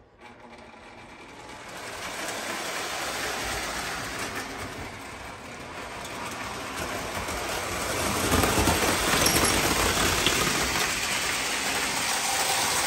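O gauge model train running round the layout: a steady electric rumble and rattle of the wheels on the track. It grows louder about two seconds in and again past the middle.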